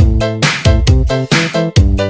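Upbeat electronic dance music with a steady, punchy beat and a bass line.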